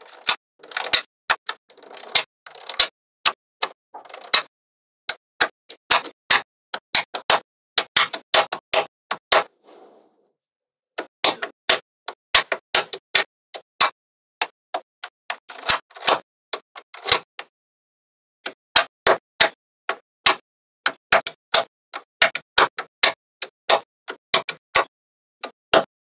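Small magnetic balls clicking sharply as rows and strips of them are snapped into place, in quick irregular runs of clicks with short pauses between. Now and then there is a brief soft rustle of balls sliding against each other.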